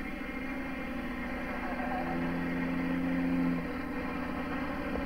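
Four-wheel drive's engine running at low revs as the vehicle is manoeuvred, a steady low hum that grows a little louder from about two seconds in and eases off near the end.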